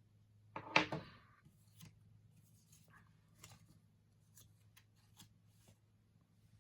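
Paper handling at a desk: a short, louder rustle about a second in, then faint rustles and small taps, over a low steady hum.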